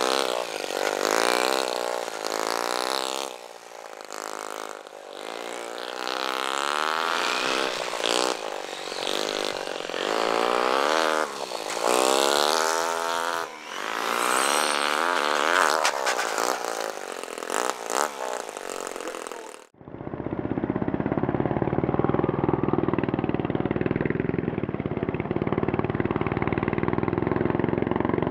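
Nitro-powered RC motorbike's OS 20 glow engine revving up and down again and again as the bike laps at speed. About twenty seconds in the sound cuts off abruptly, and a steady idle follows.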